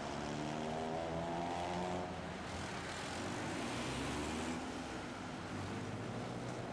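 Street traffic: motor vehicle engines running, with two engine hums that shift slowly in pitch, one in the first two seconds and another from about three to five seconds in, over a steady haze of road noise.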